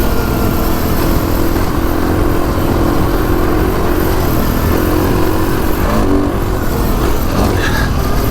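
Kawasaki KX450X dirt bike's single-cylinder four-stroke engine running at low, fairly steady revs with small throttle changes as the bike picks its way slowly over rough ground, over a heavy low rumble.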